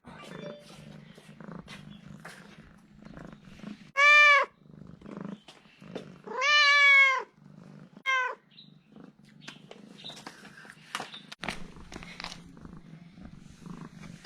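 A tianyuan (Chinese pastoral) cat purring steadily and meowing three times: a short meow about four seconds in, a longer drawn-out one around six to seven seconds, and a brief one just after eight seconds. This is the cat's contented, attention-seeking purring and meowing after being fed.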